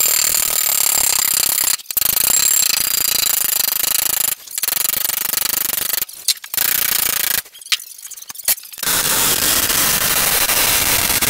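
Angle grinder working thick steel sheet, running in several stretches broken by short stops. A lull about two-thirds through holds a few sharp metal knocks.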